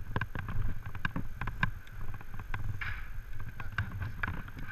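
Irregular metallic clicking and clinking, about three clicks a second, from abseiling harness hardware (carabiners, steel D-link and descender) knocking together as the abseiler moves on the rope, over a steady low rumble of wind on the microphone. A brief rasp comes about three seconds in.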